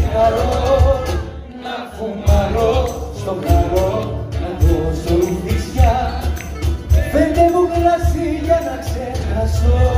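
Live Greek acoustic band playing: bouzoukis and guitars over a steady hand-drum beat, with a voice singing.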